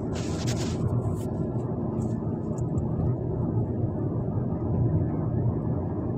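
Steady engine and tyre rumble of a Hyundai hatchback being driven, heard from inside the cabin. A brief scratchy rustle comes just after the start, and a smaller one a second or so in.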